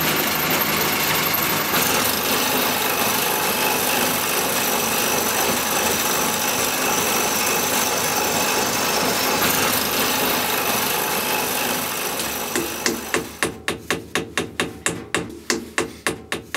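Turning chisel cutting a wooden plate spinning on a lathe: a steady hissing scrape of wood being shaved. About three-quarters of the way through, it gives way to a run of sharp, quick, regular taps, about three to four a second, which fade out at the end.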